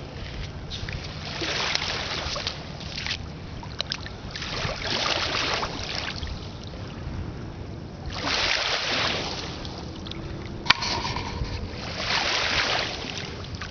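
Small lake waves lapping onto a sandy, pebbly shore, one soft wash swelling and fading every three to four seconds, over a low rumble of wind on the microphone. A single sharp click comes near the end.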